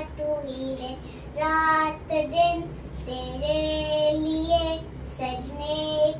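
A young girl singing unaccompanied, in several phrases of long held notes with short breaks between them.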